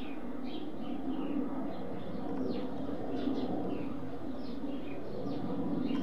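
Small birds twittering in many short, falling chirps over a steady low drone from a jet aircraft flying high overhead.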